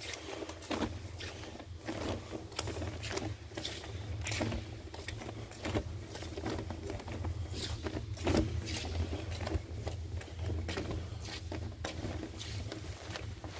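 Footsteps scuffing and tapping irregularly on the concrete floor of a drain tunnel, over a steady low rumble.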